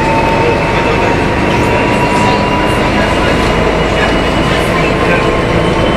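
City bus engine and drivetrain heard loud from inside the cabin while under way, a steady rumble with a high steady whine over it.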